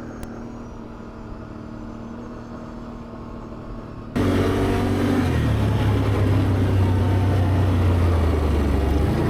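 ATV engine running on a trail ride: steady engine tone at first, then about four seconds in the sound jumps abruptly much louder, to a heavy low engine drone with rushing noise.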